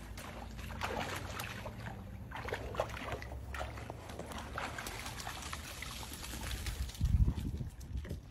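Swimming-pool water sloshing and trickling as a golden retriever moves through it and climbs out, with a brief louder low burst about seven seconds in.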